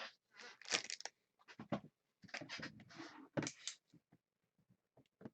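Handling noise in short irregular bursts of rustling and scratching, the busiest in the first three seconds and then a few faint scratches.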